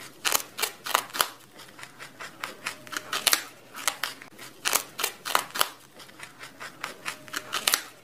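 Rabbits chewing: a string of irregular, sharp crunching clicks, several a second.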